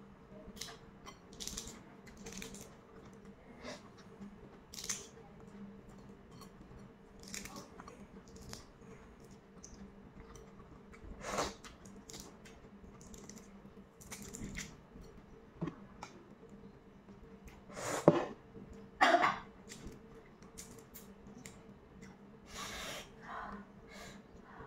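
Balut (boiled fertilized duck egg) shell being picked and peeled off by fingernails: a scatter of small crackles and clicks, with two louder cracks about two-thirds of the way through.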